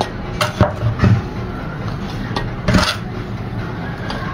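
Soil mix and a flowerpot being handled: a few short knocks and scrapes, with a longer, louder scrape a little past the middle, over a steady low hum.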